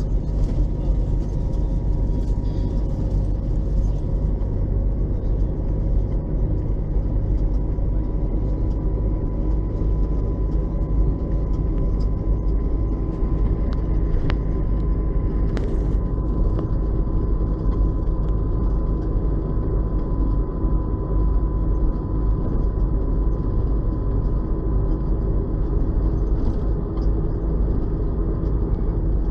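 LAZ 699R bus's ZIL-375 V8 petrol engine running at a steady speed: an even low rumble with a faint steady whine above it and no change in revs.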